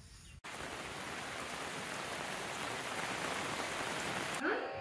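Steady rain falling, an even hiss that starts abruptly about half a second in; music comes in near the end.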